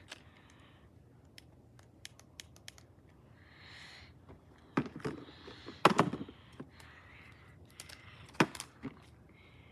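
A scatter of light clicks, then several sharper knocks about five, six and eight and a half seconds in, with soft hissing between.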